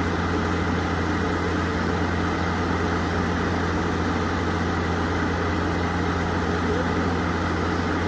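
DD51 diesel-hydraulic locomotive idling at a standstill, its twin V12 diesel engines running in a steady low drone.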